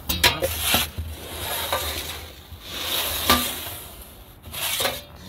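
Metal pizza turning peel scraping across the stone floor of a wood-fired oven in three strokes, with a few sharp clicks of metal on stone, as it is worked under the pizza to turn it.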